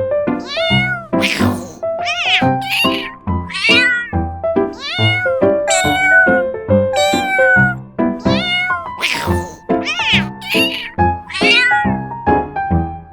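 Domestic cat meowing again and again, about a dozen meows that rise and fall in pitch, over background music with a steady beat.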